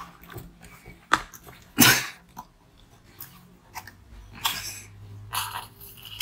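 A flexible plastic ice mould being bent and peeled off a block of frozen fruit ice: crackling, rubbing and several sharp cracks, the loudest a little before two seconds in, as the ice comes loose.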